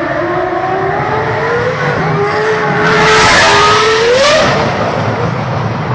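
Red Bull Racing Formula 1 car accelerating along the street. The engine note climbs steadily with brief dips at gear changes and gets loudest as the car passes close about three to four seconds in. The pitch then rises sharply, breaks off, and the sound fades.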